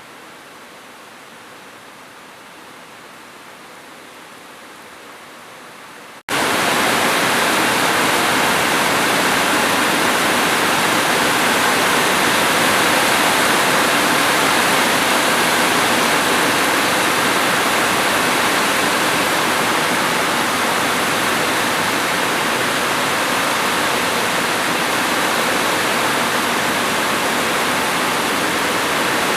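Rain on a roof, a soft steady hiss that about six seconds in cuts out for an instant and comes back far louder as a dense, steady downpour.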